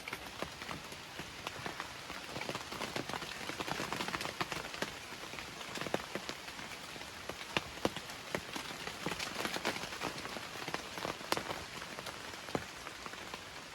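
Steady rain falling, with many separate drops hitting a surface close to the microphone.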